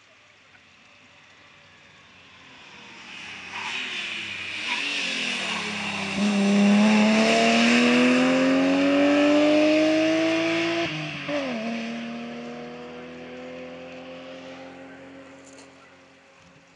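Rally car approaching, its engine note dipping as it slows for a corner, then accelerating hard out of the corner with a long rising engine note. About eleven seconds in the note drops sharply at a gear change and climbs again, fading as the car drives away.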